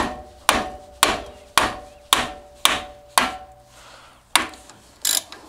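Hammer blows on the brake caliper of a Mazda MX-5 NB, knocking it to free it from the disc: about two sharp strikes a second, each with a brief metallic ring, then a short pause and two more blows near the end.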